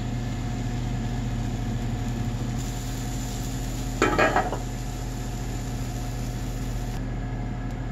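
Pancake batter sizzling as it fries in a hot oiled pan, over a steady low hum. A brief louder sound, like a short utterance, cuts in about four seconds in.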